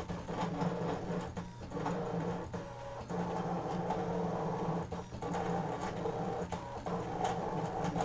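Brother ScannCut cutting machine drawing with its draw pen: its motors hum and whir steadily as the carriage and mat move, with many short clicks along the way.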